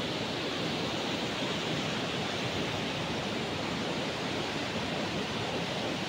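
Steady rushing of a mountain waterfall pouring into a rocky gorge, running high with spring snowmelt.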